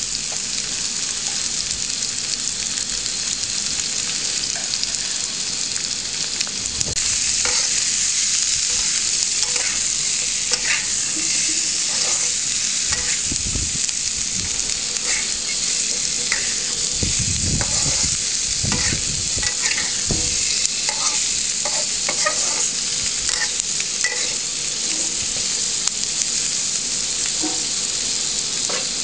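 Potatoes and onions sizzling in hot oil in a kadhai, stirred with a metal spatula. A steady sizzle that grows louder about seven seconds in, with scattered scrapes and knocks of the spatula against the pan.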